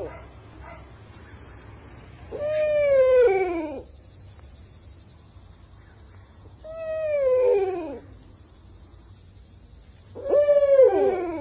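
A loud wailing call, holding its pitch and then sliding down, repeated three times about four seconds apart, each call lasting a second or more. A faint steady high whine runs underneath.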